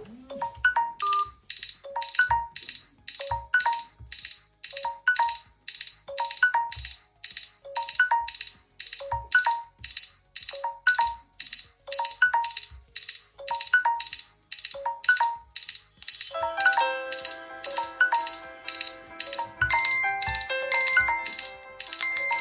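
Electronic ringtones and alarm tones from several smartphones sounding at once: a quick repeating beeping pattern, joined about two-thirds of the way through by more overlapping melodic tones.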